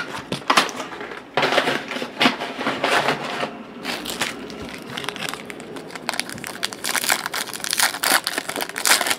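Foil wrapper of a trading-card pack crinkling and crackling in the hands as the pack is opened, a dense irregular run of sharp crackles.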